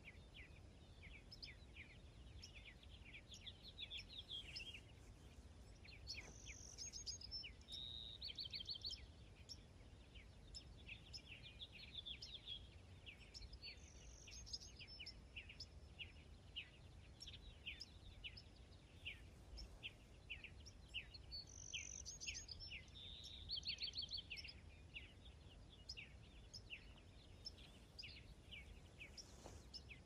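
Faint dawn chorus of songbirds: a steady stream of short chirps, with a brief trilled song phrase repeated about every seven or eight seconds, over a low background rumble.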